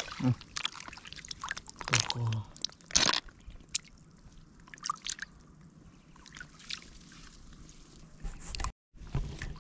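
Hands sloshing and squelching in the shallow water and mud of a flooded rice paddy, with scattered small splashes and drips. A louder splash comes about three seconds in.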